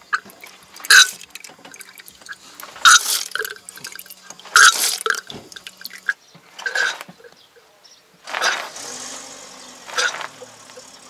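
Power steering fluid gurgling and sputtering with air in the reservoir and hose, in short bursts about every two seconds, as the system is bled of air after a pump change.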